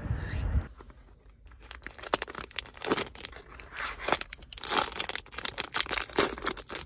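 A short low rumble, then, from about a second and a half in, a Sonny Angel blind box being opened by hand inside a car: the cardboard box pulled apart, then the foil inner wrapper crinkling and tearing in a run of sharp, irregular rips.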